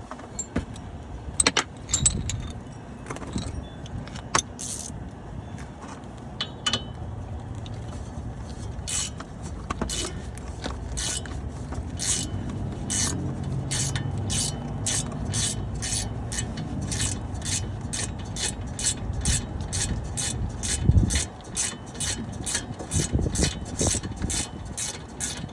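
Hand ratchet wrench working out a car's hub assembly mounting bolts: a few scattered metal clinks, then from about nine seconds in a steady run of ratchet clicks, roughly two a second.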